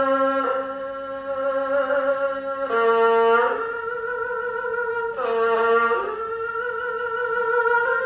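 A hundred-year-old 1920s erhu bowed in a slow melody: long held notes joined by a few sliding changes of pitch.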